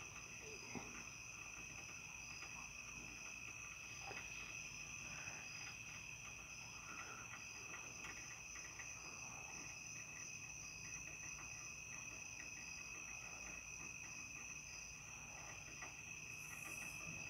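Crickets trilling, several overlapping high-pitched trills, faint and steady. One of them pulses in a quick regular beat.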